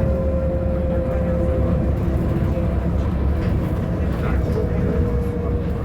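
Caio Millenium II trolleybus on a Mercedes-Benz O500UA chassis running under electric power: a low rumble with a thin steady whine from the electric drive, fading about two seconds in and coming back slightly lower near the end.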